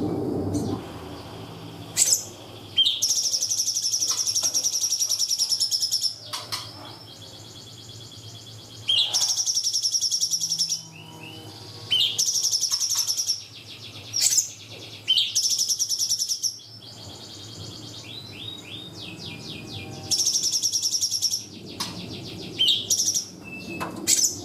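A cungkok songbird singing its fast, high trilled bursts ('tembakan'), about five bursts of two to three seconds each, separated by pauses with short single calls between.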